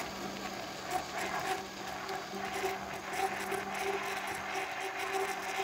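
Electric kitchen blender running steadily with a steady hum, blending a mango milkshake with small pieces of ice added.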